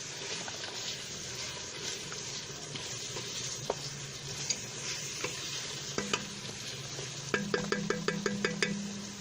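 Beef and onion frying in oil in a cooking pot, sizzling steadily while being stirred, with small scraping clicks. Near the end a quick run of about eight light metallic taps.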